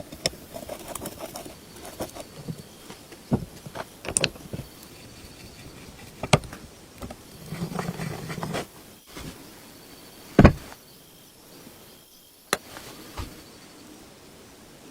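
Handling noise from restoration work: scattered clicks, taps and knocks of small parts and tools being picked up and set down. There is a short scraping rub about halfway through, and the loudest knock comes about ten seconds in.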